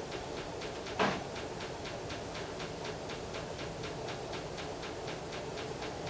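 Rapid, even ticking, about five clicks a second, over a steady low background hum, with one louder click or knock about a second in.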